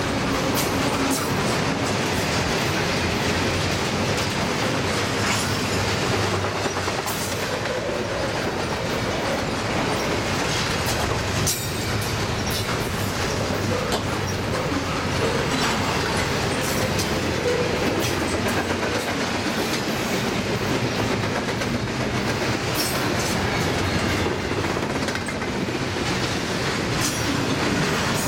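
Double-stack intermodal well cars of a freight train rolling past at steady speed: a continuous rumble of steel wheels on rail, with scattered sharp clicks and knocks as the wheels run over the track.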